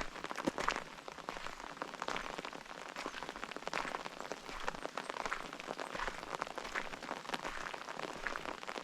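Rain falling: a steady hiss with many irregular, close-spaced drop hits.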